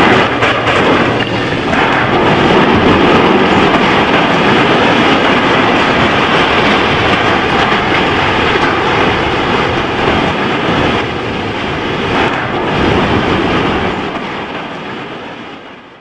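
Loud, continuous rumbling and crashing as the Big Blue heavy-lift crane and its load collapse into the stadium structure, fading out near the end.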